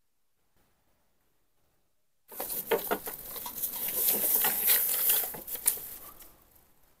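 Hands rummaging through a plastic rubbish bag: a dense crinkling and rattling of plastic and small objects. It starts suddenly a little over two seconds in and fades out about a second before the end.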